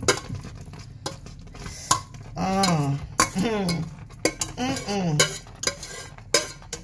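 Metal spoon scraping and clinking against metal cooking pots as smoked fish and chicken are scraped from one pot into another, with many sharp clinks. A wordless voice sounds three times in the middle, falling in pitch each time.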